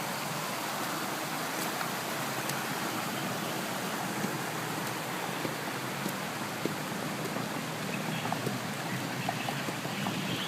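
Steady rushing noise of rain and water, with scattered light ticks.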